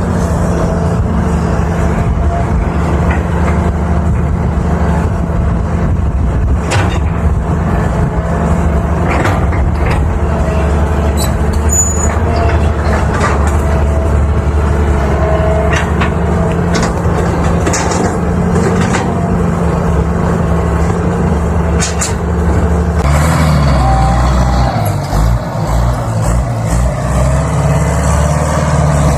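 320 excavator's diesel engine running steadily under working load, with a higher whine that comes and goes and sharp knocks now and then. In the last several seconds the engine note shifts and turns uneven.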